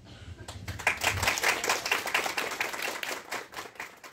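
Applause: a small group of people clapping, starting about half a second in and thinning out near the end.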